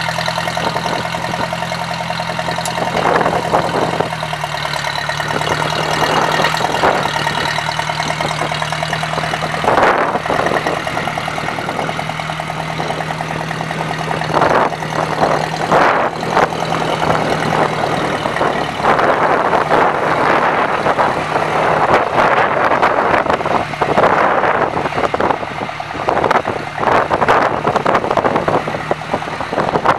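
1965 John Deere 1010 tractor's four-cylinder gasoline engine running steadily at a low, even speed. From about halfway through, bursts of rushing noise, wind-like, come and go over the engine.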